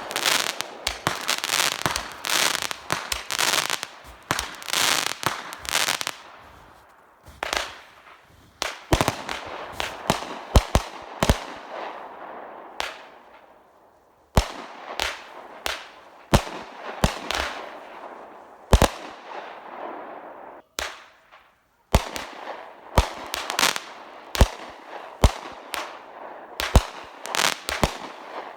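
Fireworks show going off: a rapid run of sharp bangs with crackling between them. It thins out briefly about 7 and 13 seconds in, goes almost silent for a moment just past 20 seconds, then builds again into dense volleys.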